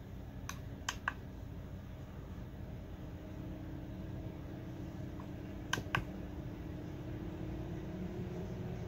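AC Infinity Cloudline Lite 4-inch inline duct fan running with a steady hum whose pitch slowly rises as its speed is stepped up. Sharp clicks of the controller's button come in quick pairs, about a second in and again near six seconds.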